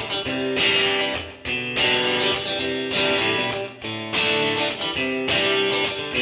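Background music: a strummed guitar playing chords with a regular rhythm.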